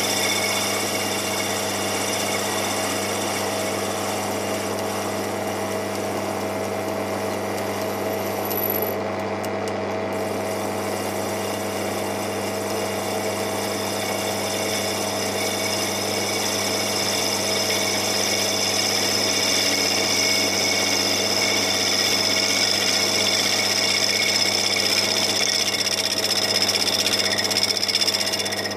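Taig micro lathe running steadily, a constant motor hum and whine, while its tool takes a facing cut across a spinning aluminium disc; a higher hiss grows stronger in the second half.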